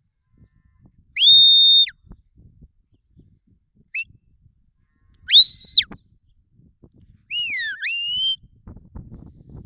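Sheepdog handler's shrill herding whistle commands: three high whistles that sweep up, hold and drop off, plus a short blip, then a fourth that dips and rises again. They are commands to the dog working the sheep.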